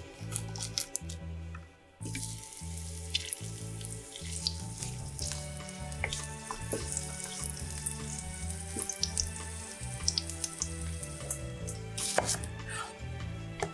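Crushed garlic cloves sizzling steadily in hot oil in a frying pan, with a few small clicks and scrapes from a wooden spatula. Before this, a knife blade crushing a garlic clove on a wooden board makes a few clicks, and a knife cuts into an onion near the end. Background music with a steady bass beat plays throughout.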